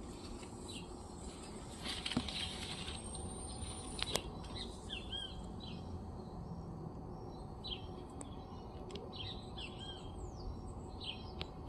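Small birds chirping, many short repeated calls over a steady low background hiss, with a brief louder rustle about two seconds in.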